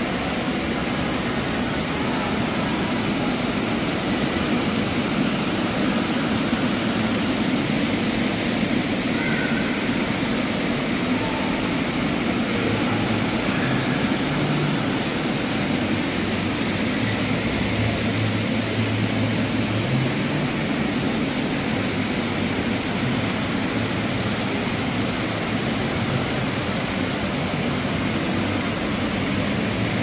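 Water sheeting down the mosaic-tiled walls of a fountain and splashing into its pool: a steady rushing noise.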